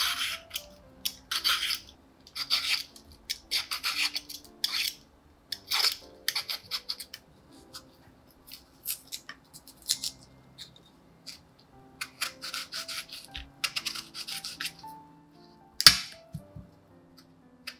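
Repeated short scraping or rubbing strokes of hands-on kitchen food preparation, about one or two a second with a lull midway, over soft background music; a single sharp tap near the end.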